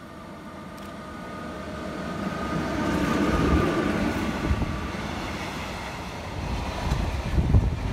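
A train approaching and running past the platform. It grows louder over the first few seconds, with a steady high whine over a deep rumble, and is loudest about three and a half seconds in. Near the end there is an uneven, gusty low roar.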